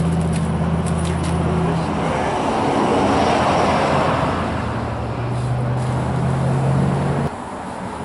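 Motor vehicle traffic: a low engine hum with a swell of passing-vehicle noise in the middle, the engine hum returning and then cutting off abruptly near the end.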